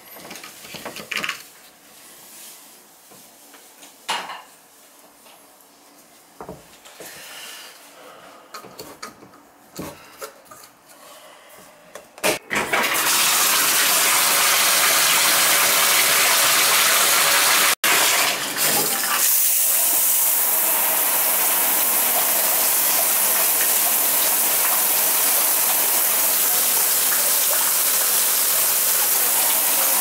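Scattered small clicks and knocks from handling a shower valve's trim. About twelve seconds in, water is turned on at the tub/shower valve and runs in a loud, steady rush.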